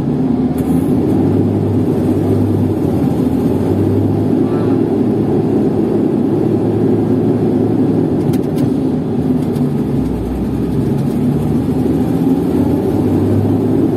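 SANY STC800S 80-tonne mobile crane's engine running under load, heard from inside the cab as the crane pulls away up an incline on a hill start, with the clutch half-released and the parking brake off. The engine note is steady, with a deeper rumble and a shift in pitch about ten seconds in.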